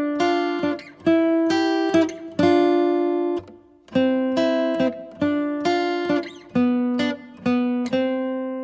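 Background music of plucked-string notes, each ringing and fading, played in short phrases with a brief gap about three and a half seconds in.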